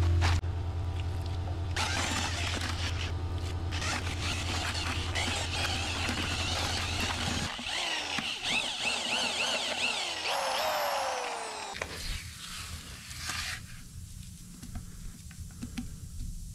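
Bagged non-shrink precision grout poured into water in a plastic bucket, then churned by a drill-driven paddle mixer whose pitch wavers up and down before it winds down and stops about twelve seconds in. Quieter scraping of the thick grout follows.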